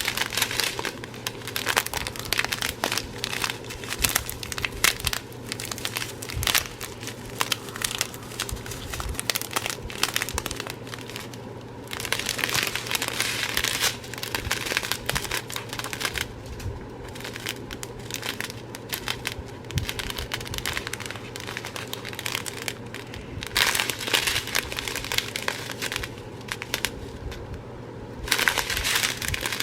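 Small plastic bags of diamond-painting drills crinkling and crackling as they are handled, on and off, with louder spells of rustling now and then, over a steady low hum.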